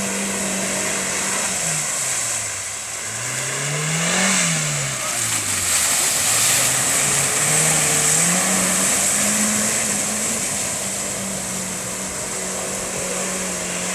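Suzuki Jimny 1.3-litre engine revving as the 4x4 drives through a mud hole. The engine note drops and climbs back up twice, then holds steady, over the hiss of mud and water spraying from the tyres.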